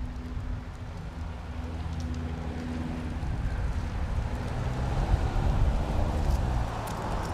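A 2024 Toyota Tacoma Limited pickup's engine running as the truck pulls away and drives past, with tyre noise that swells to its loudest about five to six seconds in as the engine note falls while it goes by.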